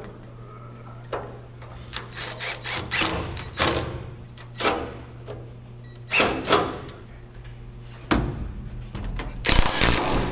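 Irregular metal knocks and clanks, a dozen or so, as radiator parts and mounting hardware on a large tractor are handled and fitted, over a steady low hum. The loudest clatter comes near the end.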